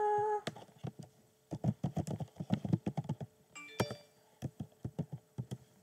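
Typing on a computer keyboard: quick, irregular keystroke clicks in two runs, one in the first half and another shorter one near the end.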